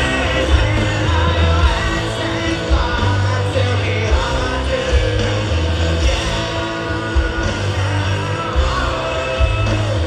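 Live rock band playing loudly, with a singer's voice over electric guitar, bass and drums.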